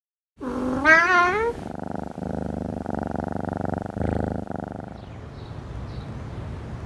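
A domestic cat gives one rising, wavering meow about half a second in, then purrs steadily for about three seconds.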